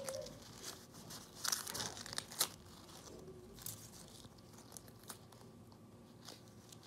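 Rustling and crinkling of material being handled, with scattered sharp clicks. It is busiest and loudest about one and a half to two and a half seconds in, then thins to occasional faint ticks.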